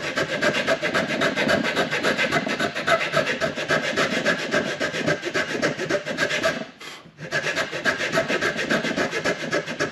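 Round file rasping back and forth across the end of wooden trim molding in quick, steady strokes, cleaning a coped cut back to the line, with a brief pause about seven seconds in.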